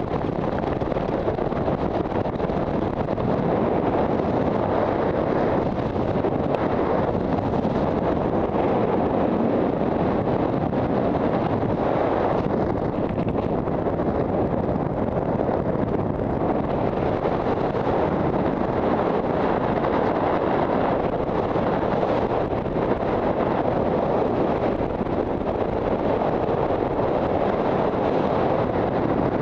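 Steady wind rushing over the camera microphone as a skydiver descends under an open parachute canopy.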